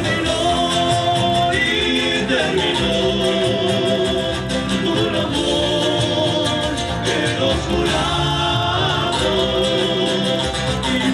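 A live band performing: singing over strummed guitars.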